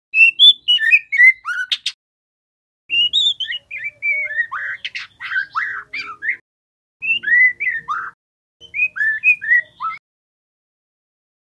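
Juvenile white-rumped shama singing in four short bursts of quick, rising and falling whistled notes, with brief pauses between them.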